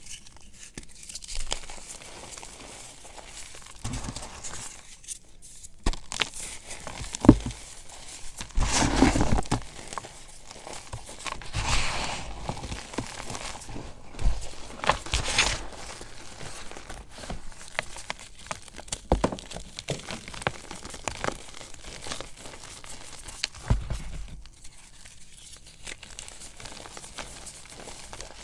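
Chunks of gym chalk crushed and crumbled between the fingers into loose powder: irregular dry crunches and soft powdery crumbling, with a few sharp cracks along the way.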